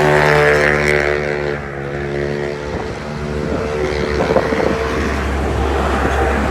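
A motor vehicle's engine passing on the road for the first couple of seconds, then fading, with strong wind buffeting the microphone through the rest.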